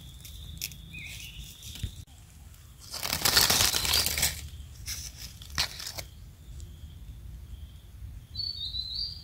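Dry fallen leaves rustling and crunching for about a second as they are disturbed, with a few sharp clicks of twigs. A bird chirps near the end.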